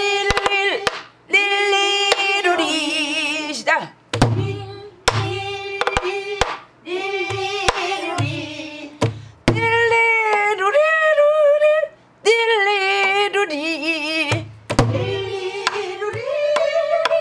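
A woman sings the 'nil-li-ru-ri' vocable refrain of a Korean folk song in short phrases with a wide, wavering vibrato. She accompanies herself on a buk barrel drum: sharp stick clicks and deep thumps from the drum heads mark the rhythm between and under the phrases.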